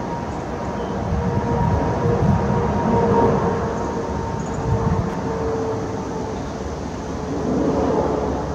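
Twin-engine Boeing 777 airliner passing low overhead on landing approach with gear down: a steady jet rumble with a faint whine held at two pitches, swelling a couple of seconds in and again near the end.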